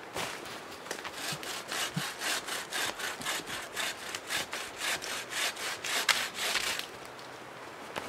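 Hand pruning saw cutting through a fallen branch with quick back-and-forth strokes, about four a second, that stop shortly before the end.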